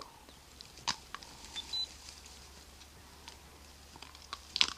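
Leopard gnawing on impala bones: scattered crunches and cracks, one sharp crack about a second in and the loudest cluster near the end.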